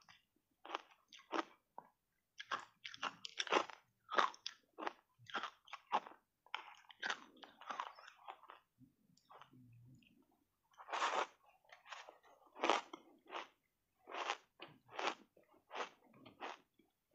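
Block ice coated in matcha powder being bitten and crunched between the teeth, a steady run of sharp, irregular crunches with a brief lull a little past halfway.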